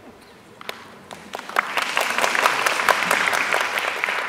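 Audience applauding: a few scattered claps about half a second in, swelling into full applause, which begins to fade near the end.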